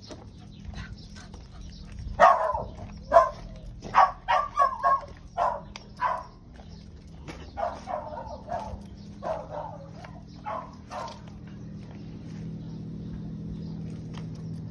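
A dog barking repeatedly, a dozen or so short barks in quick runs from about two to eleven seconds in, over a steady low hum.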